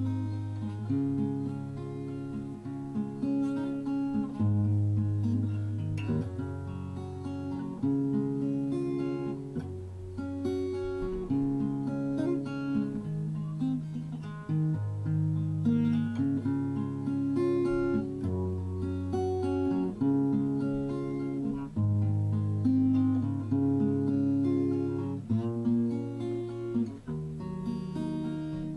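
Background music played on acoustic guitar, chords changing every second or two.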